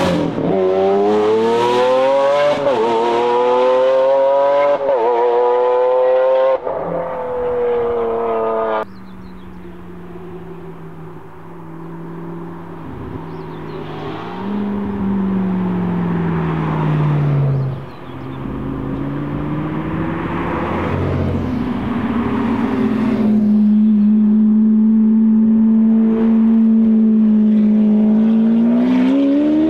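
Lamborghini Aventador's V12 through a straight-piped Akrapovič exhaust, revving and accelerating in several short cuts. Revs rise and fall quickly at the start; then comes a quieter, lower stretch with the pitch falling away; then a long loud note held at steady revs that climbs again near the end.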